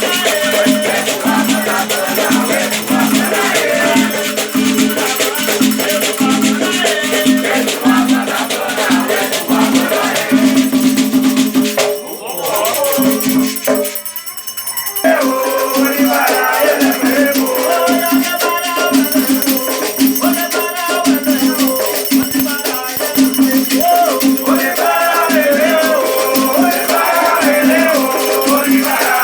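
Afro-Brazilian Batuque ritual music: rattles shaken in a steady rhythm under group singing. The music drops back briefly about twelve seconds in, then resumes.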